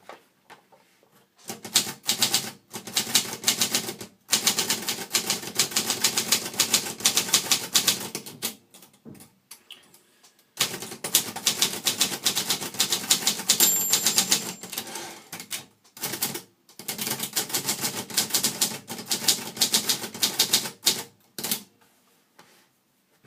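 Brother Deluxe 660-TR portable manual typewriter being typed on: rapid runs of key strikes in four long bursts with short pauses between them, and a brief high ring partway through.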